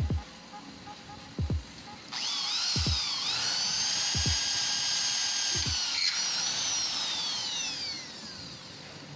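Handheld electric drill spinning up about two seconds in and drilling into steel fascia board, its whine dipping and wavering as it bites, then holding steady and winding down near the end as the trigger is released.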